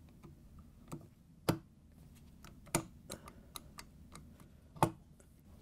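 Scattered sharp clicks from a KitchenAid stand mixer's planetary unit as its shaft is turned by hand and the unit is pushed up onto the gear housing: the sound of its gears being worked into line. The loudest clicks come about a second and a half in and near the end.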